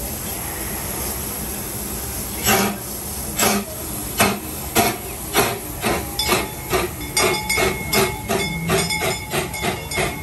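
Small steam locomotive starting off: a steady hiss of steam, then exhaust chuffs begin about two and a half seconds in, slow at first and quickening to about three a second as the train gathers speed. A thin, faint high tone joins the chuffs about six seconds in.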